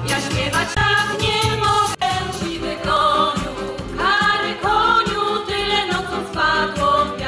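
Amplified music with a steady bass beat, broken by an abrupt edit about two seconds in. After it, a women's vocal ensemble sings in harmony through a PA, with instrumental accompaniment.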